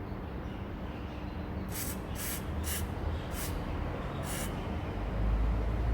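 WD-40 aerosol can being worked just before use, giving five short bursts of high-pitched noise about half a second apart.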